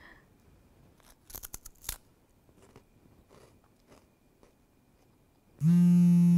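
A few sharp crinkles of a plastic wrapper around a pastry about a second in, then near the end a mobile phone's incoming-call signal starts: a loud, steady, fixed-pitch buzzing tone that lasts about a second.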